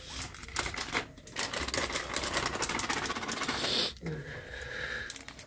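Rapid crackling and rustling as hands mix shredded cabbage with gram flour in a steel bowl, along with the crinkle of a plastic flour packet being handled.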